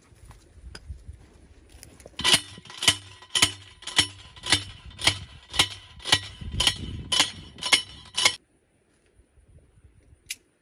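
A hammer striking the top of a steel fence post. It lands about a dozen ringing metal-on-metal blows at a steady pace of about two a second, starting about two seconds in and stopping suddenly about eight seconds in.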